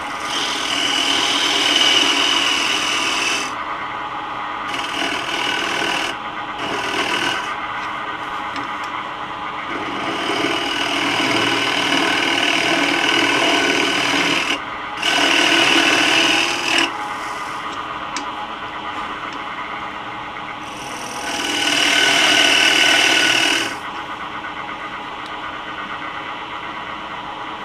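Laguna Revo 12/16 wood lathe running steadily while a square-ended scraper cuts a stepped recess into the face of a spinning wooden disc. The scraping comes in about six rasping passes of one to four seconds each, with the lathe's even hum between them.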